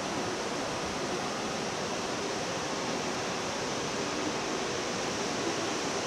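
Steady rush of Fukuroda Falls, the water pouring down the rock tiers and heard as an even hiss at a constant level.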